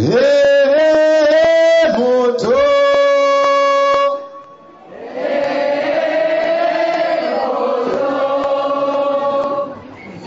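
Call-and-response chant without instruments: a lead singer sings a short phrase of held notes into a microphone, then from about five seconds in a crowd of voices sings it back together as a looser blend.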